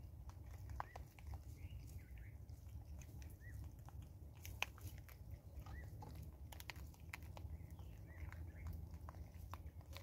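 Vervet monkeys chewing and crunching dried corn kernels close by, with scattered sharp clicks as kernels are bitten and picked off the wooden stump, one louder click about halfway through.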